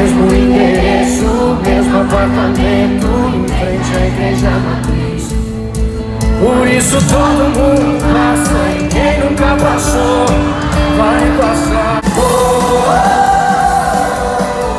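Live concert music over an arena sound system: a male singer with his band playing a sertanejo pop song, the music moving into a new section about six and a half seconds in and again about twelve seconds in.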